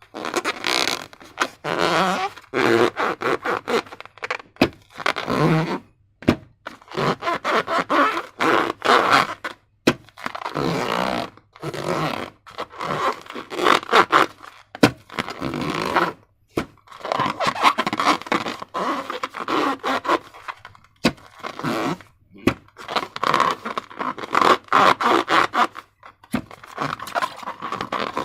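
Slime being worked by hand, sticky crackling and squishing in repeated bursts of one to two seconds with short pauses between.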